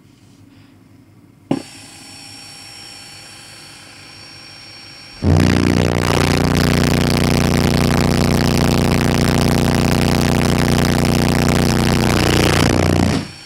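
Dual-2-ohm Soundstream XXX15 subwoofers wired to a 0.5 ohm load, playing a loud, steady 30 Hz test tone from a Power Acoustik EG1-10000D class D amplifier run at full output for a clamp test. A single sharp pop comes first. The tone starts suddenly about five seconds in, holds steady with a buzzy stack of overtones, and stops about a second before the end.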